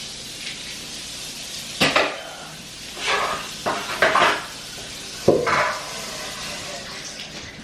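Kitchen tap running steadily while dishes and utensils clatter and knock in the sink about four times as something is rinsed off.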